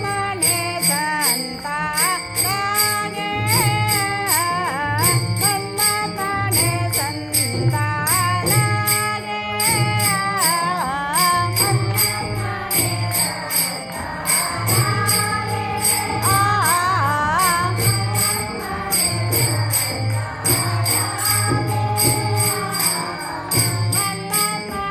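Marathi devotional abhang music: a gliding, ornamented melody over a steady low drone, with jingling percussion keeping an even beat.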